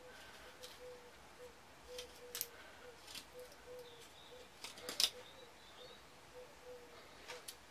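A freshly sharpened knife cutting into a piece of seasoned wood: a few short, crisp cuts at irregular intervals, the loudest about five seconds in.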